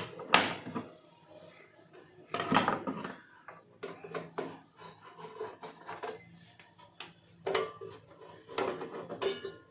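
Handling noise from opening a welding machine's casing: several sudden knocks and clatters a few seconds apart, over a faint steady hum.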